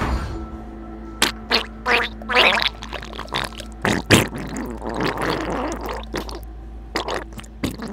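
Exaggerated wet bowel-movement sounds from a neighbouring toilet stall: irregular sputtering, gurgling and splattering bursts of gas and diarrhoea, with a longer churning stretch in the middle. A loud thump sounds right at the start.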